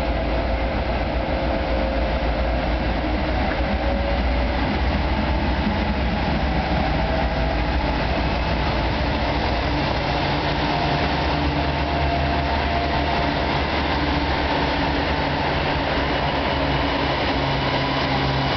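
BNSF freight train of diesel locomotives pulling double-stack container cars, approaching and running past close by with a steady loud rumble of engines and wheels on rail; the low engine drone grows stronger about halfway through as the locomotives go by.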